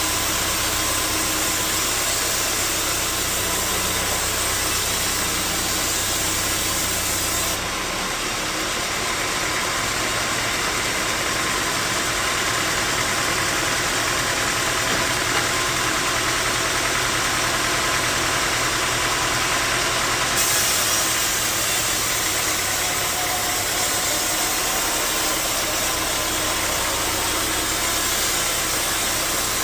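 Sawmill machinery running steadily: a continuous mechanical drone with a hissing noise over it. The sound changes about 8 seconds in, when the high hiss falls away, and again about 20 seconds in, when it returns.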